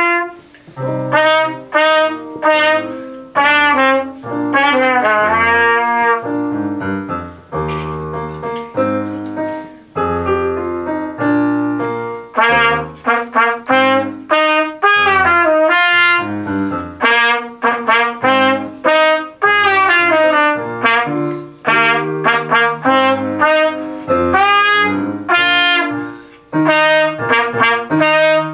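Solo trumpet playing a melody of separate tongued notes in short phrases, with piano accompaniment underneath.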